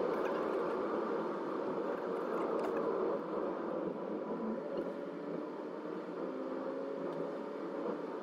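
Steady road and engine noise inside a moving car, with the engine's pitch rising faintly in the second half.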